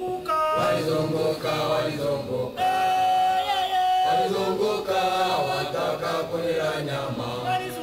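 A choir of voices singing together, holding long notes.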